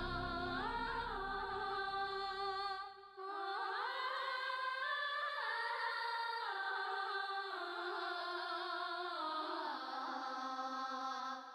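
Slow closing music with a sustained melody moving in slow steps. The low bass drops out with a brief dip about three seconds in, and the music fades away at the end.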